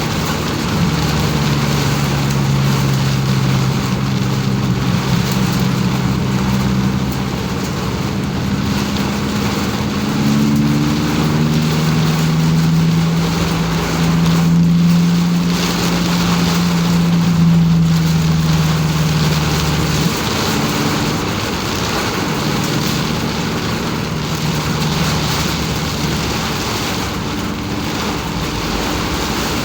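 Car engine droning steadily, its pitch stepping up and down a few times, under a constant hiss of rain and tyres on a wet road, heard from inside the car.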